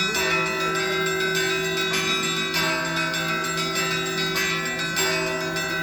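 Russian Orthodox church bells ringing a peal (zvon): several bells struck again and again at an uneven pace, their tones overlapping and ringing on over a steady deep tone from the big bell.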